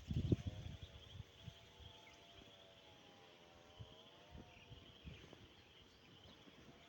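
Insects buzzing steadily in a high, even chorus. A faint droning tone that slowly wavers in pitch sits underneath for the first few seconds, and a few dull low knocks come right at the start.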